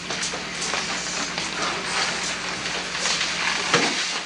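A small group applauding, a dense patter of hand claps, with one sharp click near the end.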